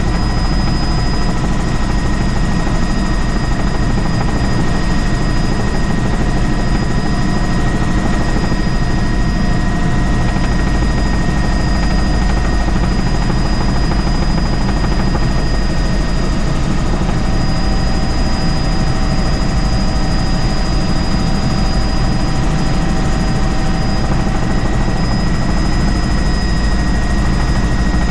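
Helicopter in flight: a steady, loud, deep rumble of rotor and engine with several constant high-pitched whines over it, unchanging throughout.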